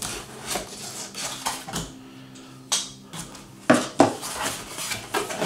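Knife cutting the tape seals on a cardboard box, and the cardboard being handled, with scraping and a few sharp clicks and knocks, the loudest about three and four seconds in.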